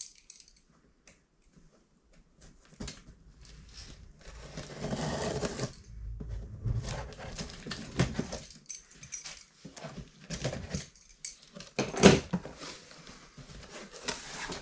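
A knife cutting the packing tape on a cardboard box, then the cardboard flaps scraped and pulled open, with rustling and clicks. One sharp knock near the end.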